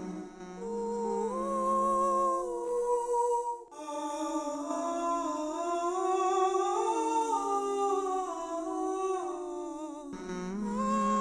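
Sound of a singing-sculpture installation: several layered humming, voice-like tones held and stepping slowly up and down in pitch. A low drone cuts off suddenly about four seconds in and comes back near the end.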